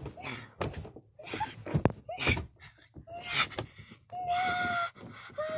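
Thumps, rustling and short vocal noises from scuffling on a bunk mattress, then about four seconds in a child's long wailing cry, held on one pitch. Another wail begins just at the end.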